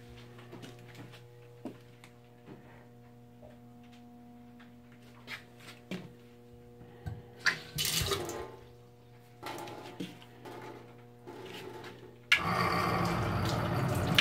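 Water running and splashing into a stainless-steel galley sink in short spells as the tap is turned on and off, the longest and loudest spell near the end. A steady low hum sounds underneath throughout.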